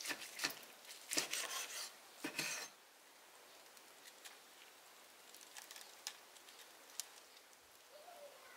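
Large knife slicing through a seared steak on a wooden board: a run of short, crisp cutting strokes in the first three seconds, then only faint scattered ticks.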